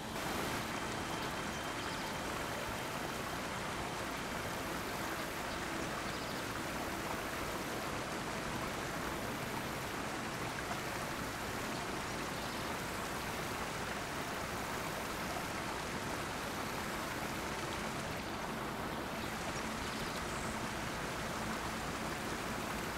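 Steady rushing of swift-flowing river water.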